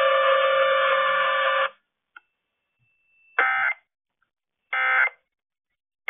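Uniden BC370 scanner radio playing a steady, tone-filled broadcast sound through its speaker, which cuts off suddenly about two seconds in. Then come two short keypad beeps about a second and a half apart as its buttons are pressed.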